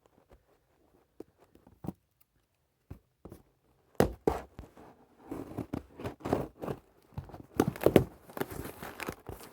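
A cardboard box being torn and pulled open by hand: a few small clicks at first, then from about four seconds in a busy run of tearing, scraping and crinkling.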